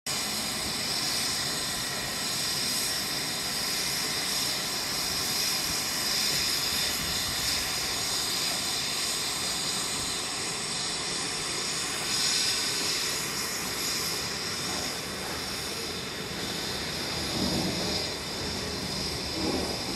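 Steady hiss of steam escaping from a steam locomotive.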